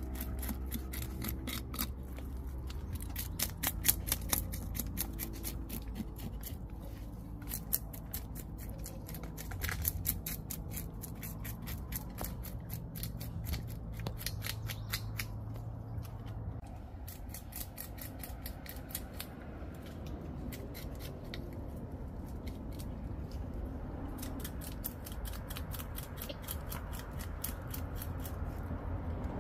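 Knife scaling a whole fish over a bucket: rapid crisp scraping strokes in quick runs with short pauses.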